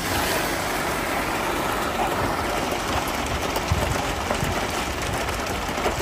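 Concrete mixer truck's engine running steadily.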